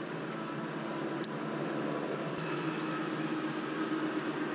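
Steady rushing of spring water running into a pond, with a single sharp click about a second in.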